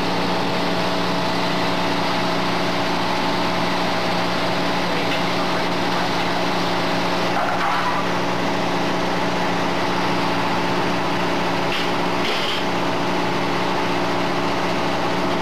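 An engine running steadily at one speed, a constant even hum with no revving.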